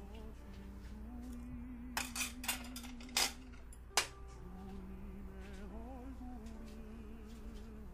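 A soft, slow, wavering melody held on long notes, with a handful of sharp clicks and clinks about two to four seconds in.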